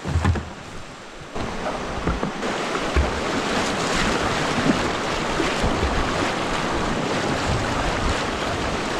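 Rushing whitewater of a river in flood, a steady rush that swells louder about a second and a half in, with wind buffeting the microphone in low thuds.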